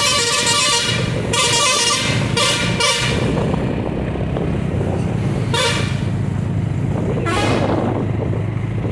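Vehicle horns on the road: a run of horn blasts over the first three seconds, then two short toots later on, over a steady engine and road rumble.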